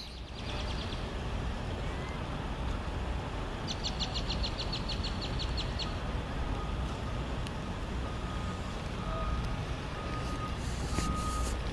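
Steady vehicle and outdoor rumble, with a backup alarm beeping about once a second through the second half. Around four seconds in there is a quick run of clicks.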